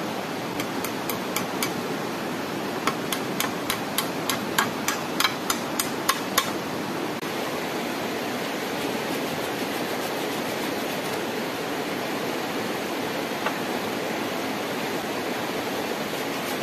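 Hammer tapping rapidly on the wooden pole frame, about four strikes a second in two quick runs, stopping about six seconds in. Under it, the steady rush of a river.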